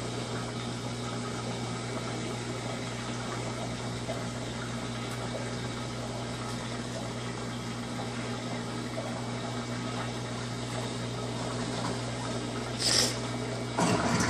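Electrolux LT15F washing machine pumping water with a steady hum. A short hiss comes near the end, and a louder sound starts suddenly just before the end.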